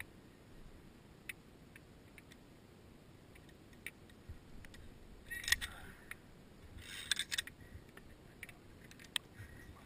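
Metal zip line clips and hardware clinking and scraping against the steel cable: scattered light clicks, then two short jangling bursts about five and seven seconds in.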